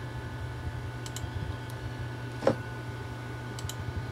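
A few computer mouse clicks over a steady low hum, with one louder click or knock about two and a half seconds in.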